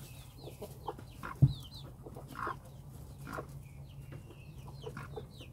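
Broody hen making a few soft, short clucks as she stands over her clutch in a straw nest, with many brief high chirps around her and one sharp low thump about one and a half seconds in.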